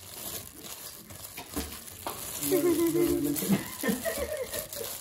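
Plastic-gloved hands tossing and squeezing cut Chinese chives in a stainless steel bowl, a crinkly rustle of glove and leaves. A person's voice holds one drawn-out sound for under a second about two and a half seconds in, with short voice sounds near the end.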